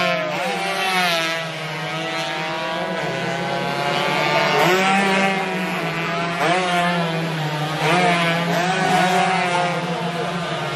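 Several racing motorcycle engines revving high, their pitch climbing and dropping again and again as they go through the gears, over a steady low engine hum.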